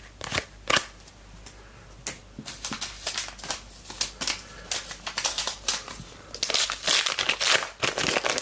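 A trading-card pack's wrapper being opened and handled: crackly crinkling that starts about two seconds in and is densest near the end.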